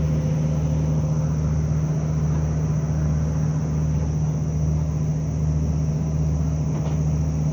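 Boat's engine running at a steady, even drone with a strong low hum.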